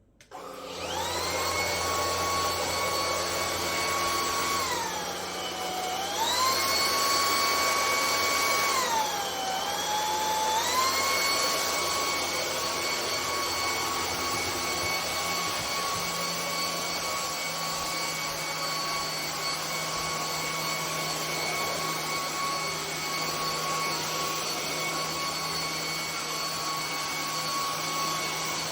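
Anyson cordless vacuum cleaner running. Its motor spins up at the start to a steady high whine, which twice sags in pitch for a second or two, around five and nine seconds in, and climbs back each time.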